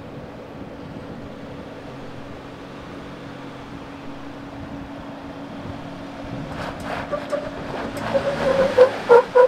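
Ford Bronco Badlands engine running at crawling speed as it climbs a slickrock step, its note rising about six seconds in. Near the end a quick run of short, loud squawks comes in over it.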